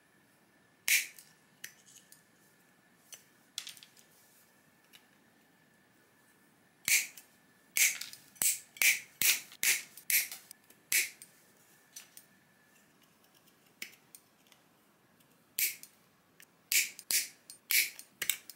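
Wire snips cutting the corners off a Neutrik Powercon socket's plastic flange: sharp plastic snaps, one about a second in, then a quick run of snaps a few seconds later and another run near the end.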